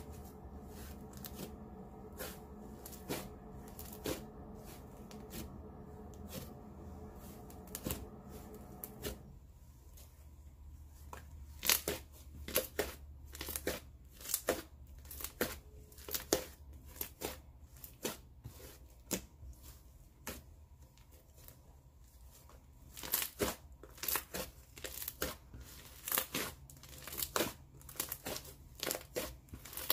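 Thick, stretchy slime being stretched, folded and squished by hand, giving off many small sharp bubble pops and clicks that come more often and louder in the second half. A faint steady hum sits underneath until about nine seconds in.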